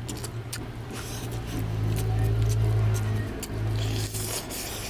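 Hand-eating sounds: fingers squelching through rice and oily curry and wet mouth clicks, ending with a mouthful taken near the end. Under them runs a low steady hum that swells in the middle.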